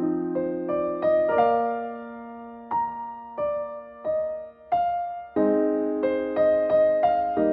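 Background music: a gentle electric piano playing a slow melody over held chords, notes struck one after another.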